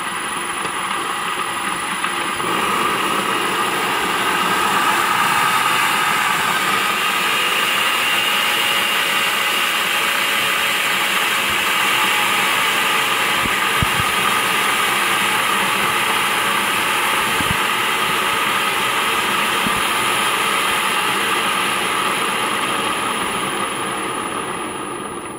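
Reconditioned Vauxhall M32 six-speed manual gearbox being spun on the bench by an electric motor, running steadily with a mechanical whine from its gears and bearings during its final test after a rebuild. It picks up over the first few seconds and winds down near the end.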